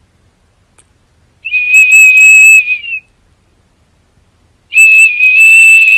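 Small plastic toy whistle held in a golden retriever's mouth, sounding two long, steady, shrill blasts about a second and a half each, the second starting near the end.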